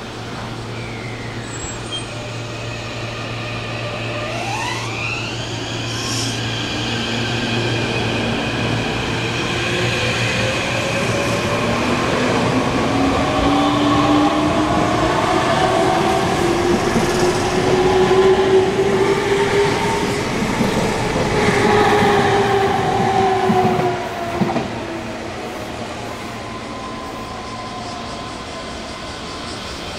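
Meitetsu electric train accelerating: its motor whine rises steadily in pitch and grows louder for about fifteen seconds. Near the end the whine bends down and falls away abruptly.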